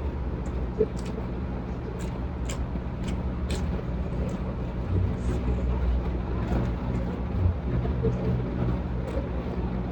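A person chewing and eating, with scattered small clicks and mouth smacks over a steady low rumble.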